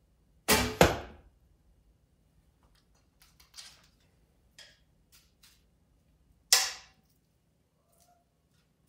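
Recurve bow shot: the string snaps on release and, about a third of a second later, the arrow strikes the target with a thunk. Faint clicks follow, then another single sharp crack about six and a half seconds in.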